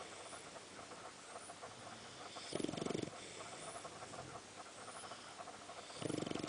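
Boxer dog snoring in its sleep: two fluttery snores about three and a half seconds apart, one about two and a half seconds in and one near the end, with quiet breathing between.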